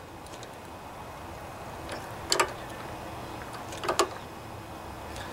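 A screwdriver working the screws of the metal diaphragm cover on a Briggs & Stratton twin-cylinder carburetor: a few sharp metal clicks, a close pair about two seconds in and another about four seconds in, over a steady hiss of wind.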